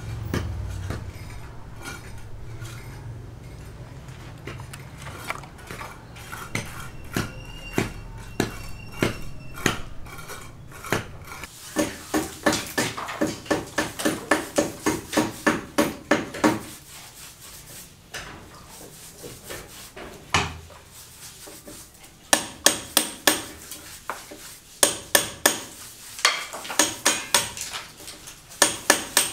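Hand plastering: runs of quick, light clinking and scraping strokes, about three a second, from a trowel working cement skim coat out of a bucket and onto a concrete beam. The strokes are sparse at first and come in steady runs in the second half.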